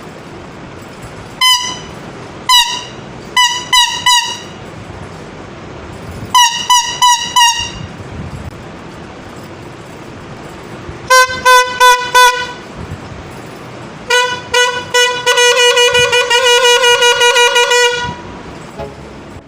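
Toy horn, upgraded for a louder pressure-horn sound, honking in short toots. Two groups of higher-pitched beeps come first. Then a lower tone gives four toots and a run of rapid pulsed honking about three seconds long.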